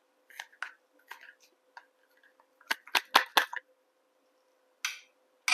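Scattered light clicks and snips of small objects or tools being handled, with a quick run of sharp, loud clatters about three seconds in. A faint steady hum runs underneath.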